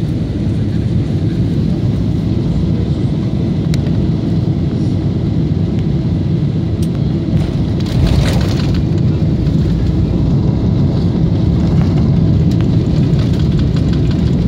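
Boeing 777-300ER cabin noise on landing: a steady low rumble of airflow and engines, with the jolt of touchdown about eight seconds in. After it the rumble grows louder and harsher as the wheels roll on the runway and the spoilers go up to slow the aircraft.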